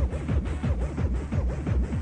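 Fast Makina/hard trance dance music from a DJ mix: a steady, rapid electronic kick-drum beat under dense synth layers.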